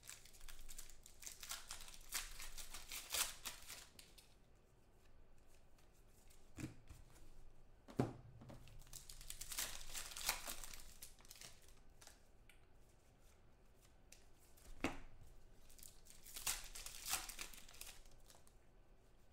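Football trading cards slid one by one off a stack held in the hands, a papery rustling swish in three spells, with a few sharp clicks of card edges.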